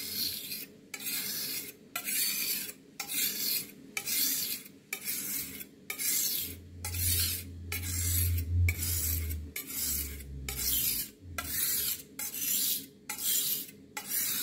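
Kitchen knife blade being stroked back and forth across a soaked whetstone: repeated rasping strokes, about one a second, with short breaks between them.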